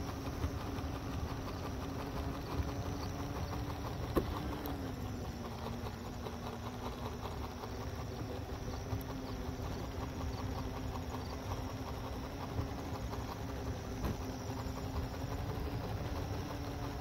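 Halo Rover hoverboard's electric hub motors humming steadily as it rolls over a concrete path, with a rough rumble from the wheels on the pavement. The hum drops a little in pitch about five seconds in, and there is a sharp tick about four seconds in.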